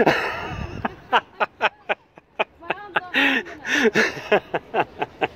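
A person laughing in a string of short breathy bursts, several a second, with a few longer voiced laughs.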